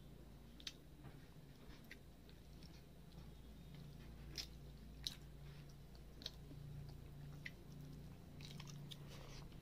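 Faint eating-by-hand sounds: rice, fish fry and gravy squished and mixed with the fingers on a steel plate, and chewing, with scattered sharp little clicks over a low steady hum.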